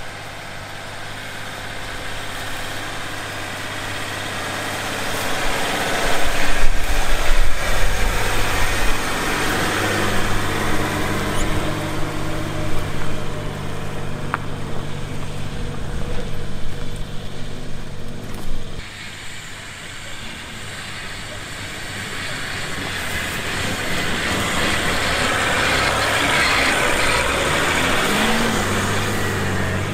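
Land Rover Discovery 3's engine pulling steadily up a steep grassy slope in first gear low range, with the tyres working through the grass. About two-thirds of the way in the sound changes abruptly to the same vehicle climbing in first gear without low range, with a rising hiss of the tyres churning through grass and mud.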